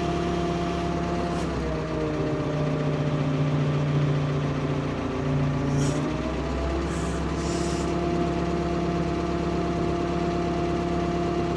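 Ford P-42 excavator's diesel engine running steadily, its pitch sagging under load for a few seconds from about two seconds in, then picking back up.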